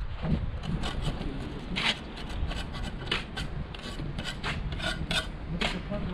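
Steel trowel scraping and cutting mortar on a mortar board, a run of short, irregular rasping strokes.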